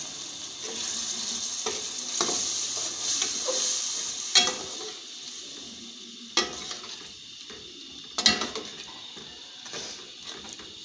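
A masala of onions, tomatoes and spices sizzling in a steel kadai with a little water, stirred with a spatula. The sizzle is stronger in the first half and eases off later, and the spatula clacks sharply against the pan three times in the second half.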